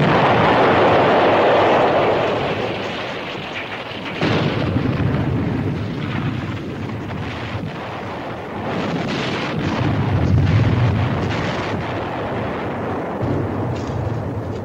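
Shell explosion, loud at the start and fading over a few seconds. A second burst comes about four seconds in, followed by continued low rumbling of shelling.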